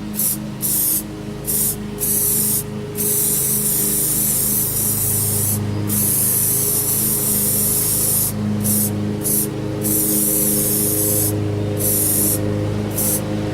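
A loud, steady hiss that breaks off for short moments again and again, over the steady drone of a lawn mower engine.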